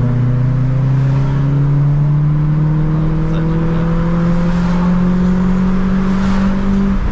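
Renault Sandero RS's 2.0-litre four-cylinder engine pulling hard, heard from inside the cabin. Its note drops at the start with a gear change, then climbs steadily as the car accelerates.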